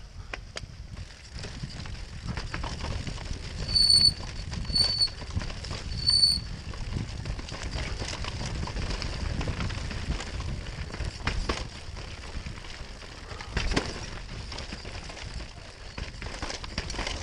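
Mountain bike ridden fast down a rooty dirt trail: tyres and frame rumbling and rattling over the ground, with three short high-pitched squeals of the brakes about four to six seconds in.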